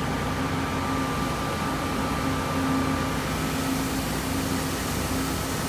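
Steady mechanical hum with a low drone and a faint high whine.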